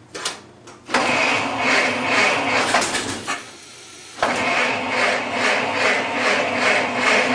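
Ford Model T four-cylinder engine starting: it comes in abruptly about a second in, falters for about a second, then picks up again and runs with an even pulsing beat.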